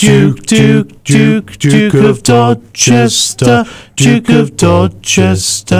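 A cappella radio station jingle: several voices singing in close harmony, in short, clipped syllables at about two a second.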